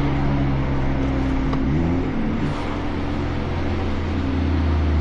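Flat-four engine of a 2017 Subaru Impreza with a full muffler delete (no muffler), heard inside the cabin with the front windows open. Its note runs steadily, then about two seconds in rises in pitch as the car is downshifted into second and the revs climb, then holds at the higher revs.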